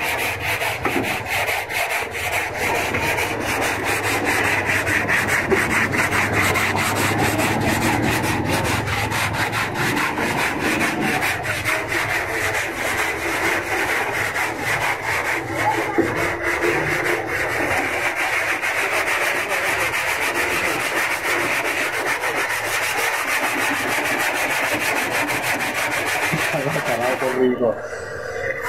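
Hand sanding on the body of a Suzuki Bolan van, an abrasive pad rubbed back and forth over the door sill in rapid, steady strokes to take down old paint and filler. The sound dips briefly near the end.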